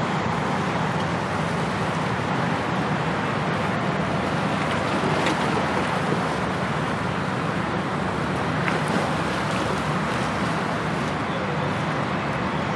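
Steady outdoor background noise: a continuous low rumble with a hiss over it and no distinct events.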